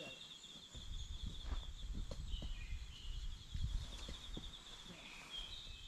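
Tent fabric rustling and knocking as a tent is lifted and spread, a low rumble starting about a second in and easing off near the end. Under it runs a steady, fast-pulsing high insect trill.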